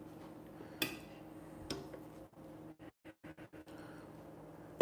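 Metal kitchen tongs clicking twice against an air fryer basket as cooked chicken thighs are lifted out, over a faint steady hum. The sound cuts out in several short gaps about halfway through.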